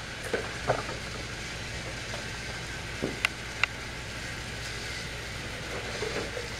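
A few light clicks and taps of plastic toy trains and track being handled, over a steady low hiss.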